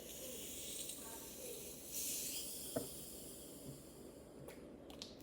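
Faint fizzing hiss of carbonated Sprite, strongest about two seconds in. A sharp click follows near the three-second mark, and a few lighter clicks come later.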